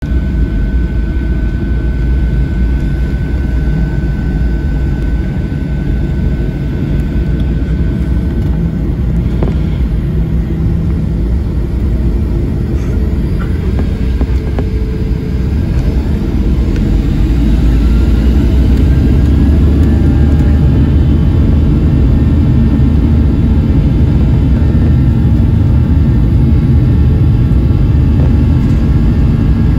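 Boeing 737 jet engines heard from inside the cabin at the start of the takeoff roll: a steady low rumble that grows louder about halfway through, with a rising whine as the engines spool up.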